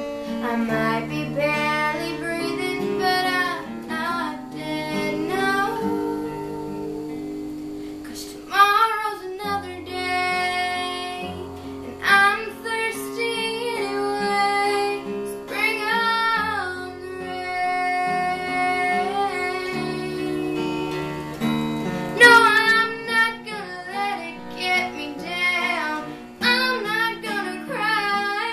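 A girl sings a slow song solo, accompanied by an acoustic guitar. About six seconds in the voice pauses for a couple of seconds while the guitar carries on alone.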